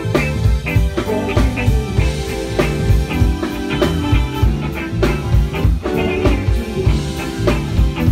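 Live band playing: a drum kit keeping a steady beat under electric guitar and keyboard.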